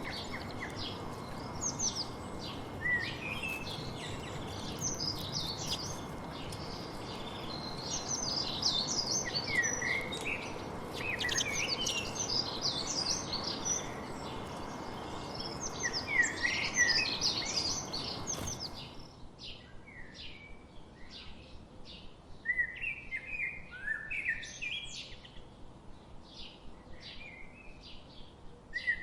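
Several small songbirds chirping and twittering in quick, overlapping calls over a steady background hiss. About two-thirds of the way through the hiss cuts off abruptly and the chirping carries on over a quieter background.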